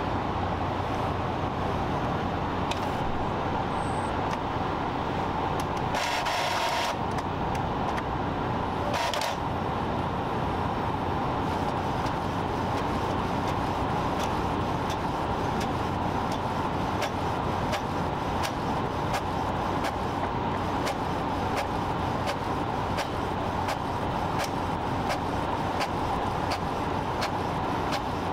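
Epson ET-3760 EcoTank inkjet printer printing a photo: a steady mechanical whirr with a short, louder rush of noise about six seconds in and a run of evenly spaced ticks through the second half.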